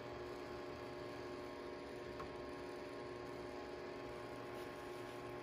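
Steady electrical hum with a few constant tones over a faint hiss, unchanging throughout.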